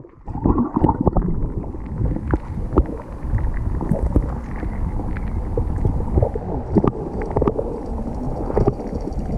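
Muffled underwater sound picked up by a submerged action camera: low rumbling and sloshing water with many small scattered clicks and knocks as a hand moves in the water.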